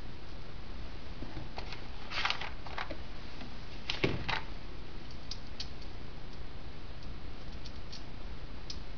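Scattered clicks and knocks of metal brake parts, a servo and its pedal-box linkage, being handled and fitted on a wooden workbench, with a louder knock about four seconds in.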